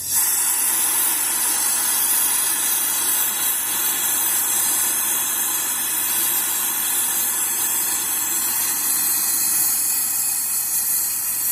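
Forge air blower forcing air into the coal fire: a loud, steady hiss that starts abruptly.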